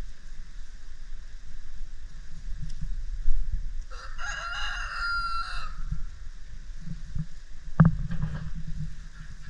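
Rooster crowing once, a single cock-a-doodle-doo of about two seconds starting about four seconds in and ending on a long held note. A single sharp knock follows about two seconds later.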